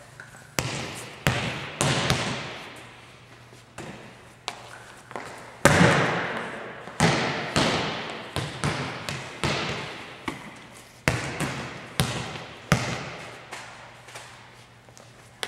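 Volleyball being struck and bouncing off the hardwood gym floor: a string of sharp smacks at an uneven pace, roughly one or two a second, each ringing out in the long echo of a large gymnasium.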